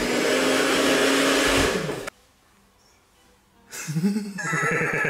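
Handheld hair dryer running at full blast with a steady hum, switched off abruptly about two seconds in. After a short quiet gap, a voice comes in near the end.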